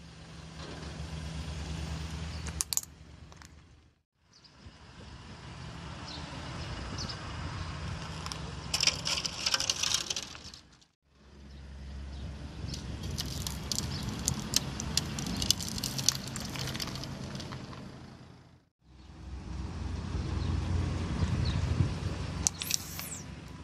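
Car tyre rolling slowly over gritty asphalt over a low engine hum, in four short takes split by brief silences. In each take the tyre crushes a small plastic object, with clusters of sharp cracks and crunches: a lip-gloss bottle, a plastic Coca-Cola bottle and a plastic tube.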